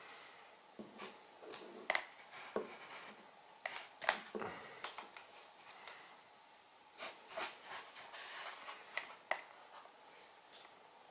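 Hands handling wiring and small plastic plugs on a multirotor's frame: scattered light clicks and rustling, with a few sharper ticks.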